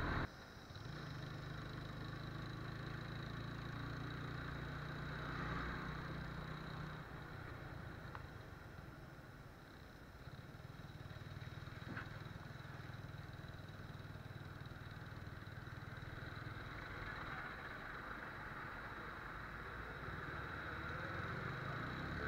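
TVS Apache RTR 180's single-cylinder motorcycle engine running as the bike is ridden, a steady low drone.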